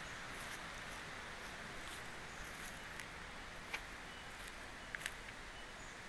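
Small stream babbling steadily, with a few light clicks in the second half.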